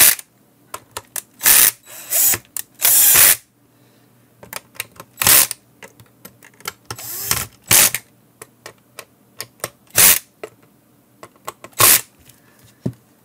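Cordless drill/driver driving small self-tapping screws into a plastic instrument case, in a string of short bursts under a second each with pauses between, the motor pitch rising at the start of some bursts.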